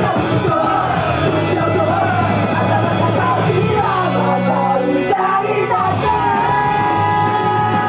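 Loud live rock music with young women singing into microphones; about six seconds in a long note is held.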